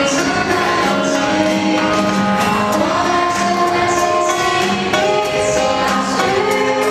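A group of students singing a pop song together over a backing track with a steady beat.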